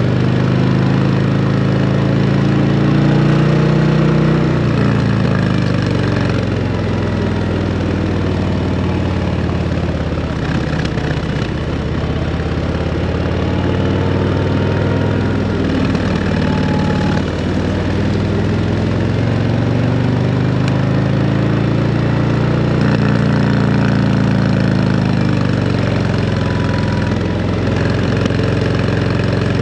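Harley-Davidson CVO Road Glide ST's Milwaukee-Eight 121 V-twin running through a Screaming Eagle exhaust under way, the revs climbing and dropping several times as the throttle opens and closes.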